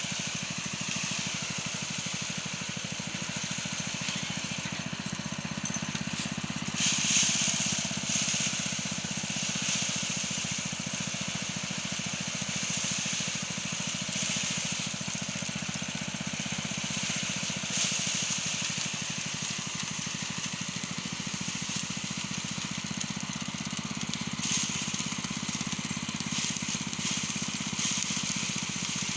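Small engine running steadily, with a hissing rush that swells briefly a few times, about 7, 18 and 25 seconds in.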